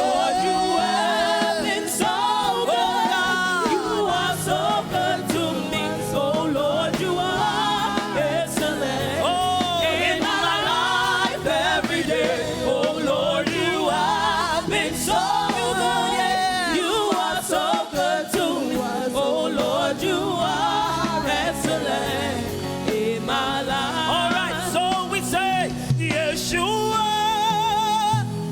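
Gospel praise-and-worship singing with music backing, the voices holding long, wavering sung notes.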